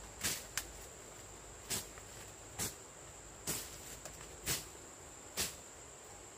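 Steady high-pitched insect drone, with short, sharp cutting strokes about once a second from a hand blade slashing through weeds and ferns.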